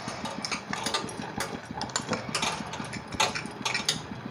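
Metal spoon and glass bowls clinking and tapping in a run of sharp, irregular clicks as flour and cornflour are mixed, over a steady low hum.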